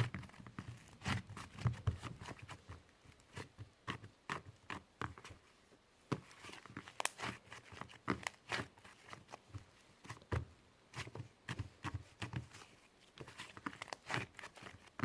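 Pink clay slime being squished and worked by hand, giving irregular clicks, pops and crackles, some in quick runs.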